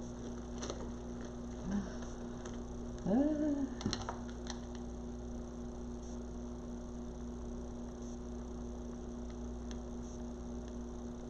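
Steady electrical mains hum, with a few faint clicks and one short rising-and-falling sound about three seconds in.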